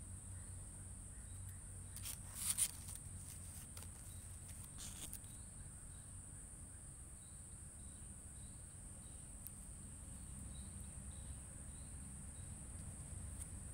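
Insects droning steadily outdoors in a high, even hiss, over a low rumble. A short scratchy rustle about two and a half seconds in is the loudest moment, with a weaker one near five seconds, and faint short chirps repeat about twice a second in the second half.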